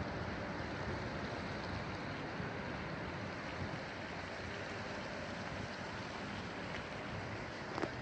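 Steady rushing outdoor noise with one sharp click near the end.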